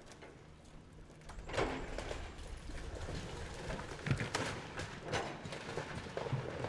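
Brick wall being knocked down by an excavator bucket: bricks and masonry crash down suddenly about a second and a half in, followed by more cracks, clatters and thuds over a low rumble.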